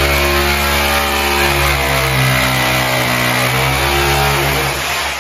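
Corded electric drill running under load as it bores a hole into a cement wall, a steady motor whine that sags slightly in pitch in the middle and winds down near the end.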